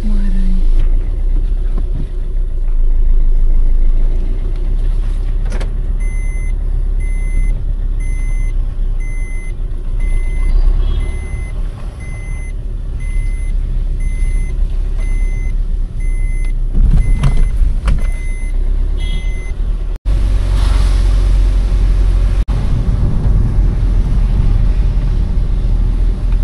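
Motor vehicle running with a steady low rumble. An electronic beep repeats about once a second for some thirteen seconds. After about twenty seconds the rumble and rushing noise get louder.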